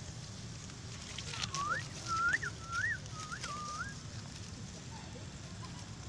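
Baby long-tailed macaque crying: a quick run of about five short coo calls, each sweeping up in pitch, over about two and a half seconds.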